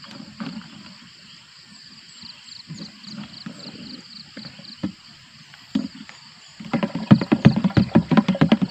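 Manual knapsack sprayer being pumped by its hand lever from about seven seconds in: a loud, fast, even run of pump strokes, about five a second, building pressure in the tank before spraying. Before that come a few quieter knocks from handling the sprayer, over a steady chirping of insects.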